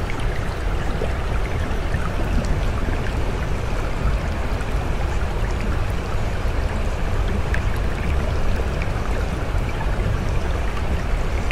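Steady rushing water running as an unbroken background bed, with a strong low rumble beneath.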